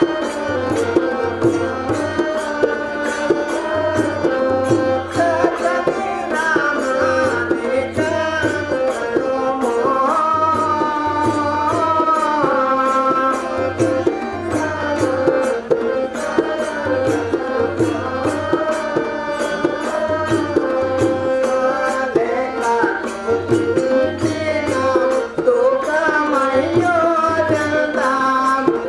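Indian music with tabla keeping a steady beat under a wavering melodic line, played as stage-play accompaniment.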